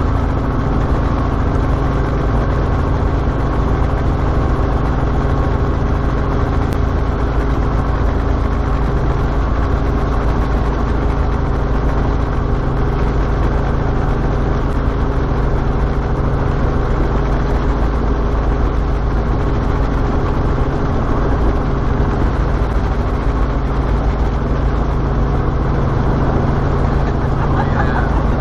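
Cabin noise of a Robinson R44 helicopter in flight: the piston engine and rotors running with a steady, unbroken drone as it descends to land.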